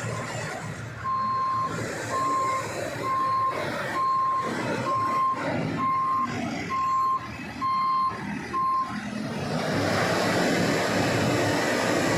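A heavy vehicle's reversing alarm beeps nine times, about one beep a second, over the steady noise of its engine. The beeping stops about three-quarters of the way through, and the engine noise then grows louder.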